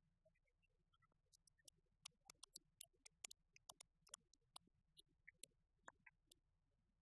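Near silence: room tone with faint, scattered short clicks and ticks.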